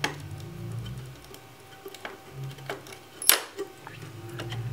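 Small metal clicks and taps from fitting the first screw of a Wi-Fi card inside a Mac Pro tower, with one sharp click about three seconds in that is the loudest. A low hum comes and goes beneath them.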